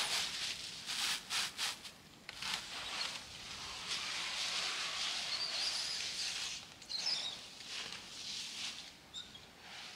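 Rustling and crackling of hands working with material, with short sharp crackles in the first two seconds and a few faint high chirps later on.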